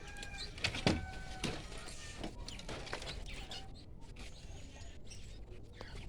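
Birds chirping and calling in short notes with a few held whistles, and a couple of sharp clicks about a second in.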